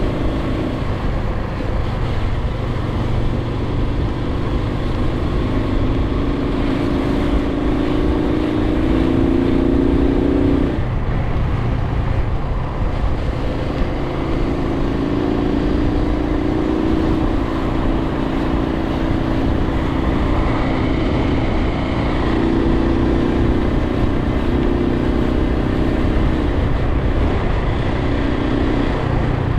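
Suzuki TU250x's air-cooled single-cylinder engine running under way, heard through heavy wind rumble on the microphone. The engine note climbs steadily, falls away sharply about eleven seconds in, then picks up again.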